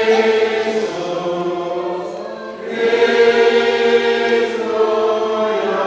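A congregation singing a slow hymn together in long held notes, with a short break about two and a half seconds in before the next phrase.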